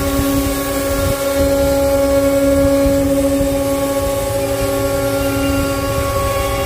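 Five-axis CNC router running a finishing cut: the spindle gives a steady whine over a low rumble.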